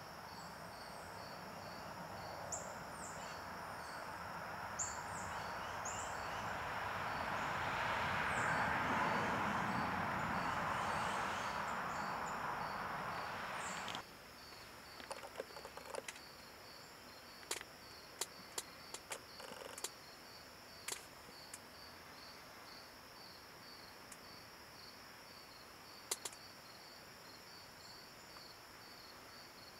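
Insects chirping in an even, repeating pulse. A broad rushing noise swells over the first half and cuts off suddenly about halfway through, followed by a scattered series of sharp clicks.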